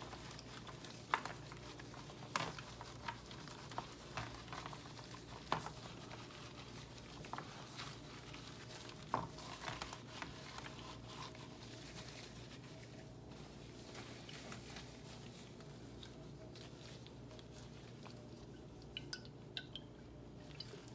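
Latex-gloved hands rubbing olive oil into the flesh of halved spaghetti squash on a metal baking sheet: soft handling noise with scattered clicks and taps, sparser after about twelve seconds, over a low steady hum. A few light clicks near the end as a seasoning bottle is picked up.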